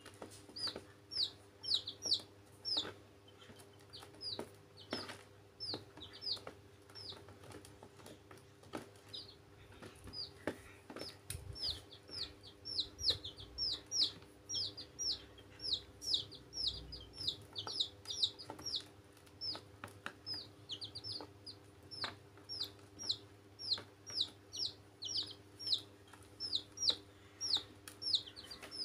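Young domestic chicks peeping: short, high cheeps that slide downward, coming in quick runs one after another. Scattered light taps and a faint steady hum sit underneath.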